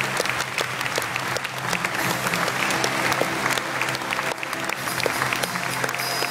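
Audience applauding steadily, with live electronic keyboard music playing underneath.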